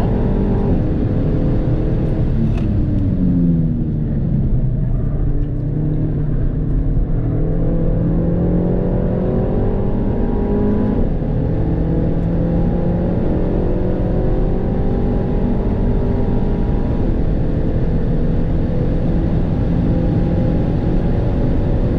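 Stock 2022 Renault Mégane RS Trophy's turbocharged four-cylinder engine heard from inside the cabin on a track lap, over steady tyre and road rumble. The engine note drops about three seconds in as the car slows, then climbs in long pulls, broken by gearchanges around eleven and seventeen seconds.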